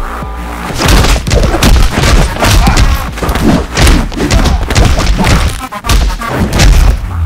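Fight-scene soundtrack: a rapid run of punch and body-hit sound effects over music with a heavy, constant bass.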